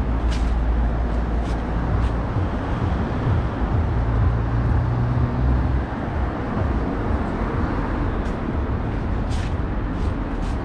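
City street traffic: a vehicle engine runs close by over steady road noise, and its low hum drops away about six seconds in.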